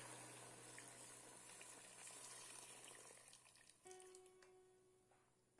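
Faint hiss and sizzle of boiling water poured into a hot pot of penne toasted in oil and tomato paste, dying away over the first few seconds; a faint clink about four seconds in.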